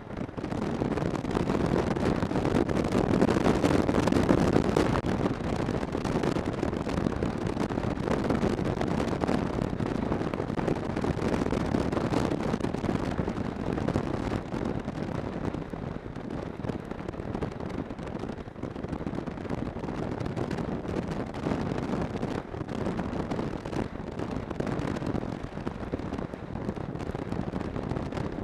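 Snowmobile running at a steady cruising speed along a snow trail: a continuous engine-and-track rush mixed with wind buffeting the microphone, a little louder a few seconds in.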